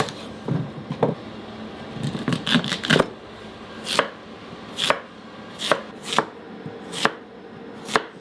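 Knife cutting through a sweet potato: a series of crisp chops, roughly one a second, with some coming in quick clusters of two or three.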